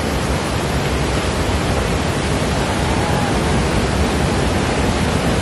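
Steady loud rush of river water flowing.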